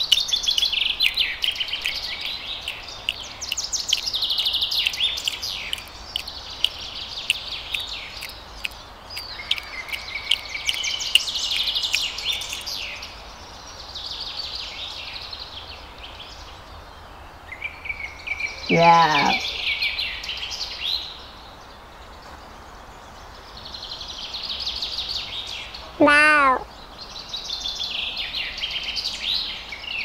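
A chorus of small birds chirping and twittering without pause, with scattered sharp clicks. Twice, past the middle, a short wavering call cuts through it.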